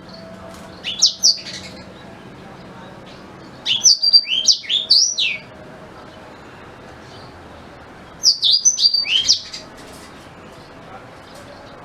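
Blackthroat (black-throated canary) singing in three short bursts of quick, high, down-slurred notes: one about a second in, a longer one around four seconds in, and another near eight seconds in.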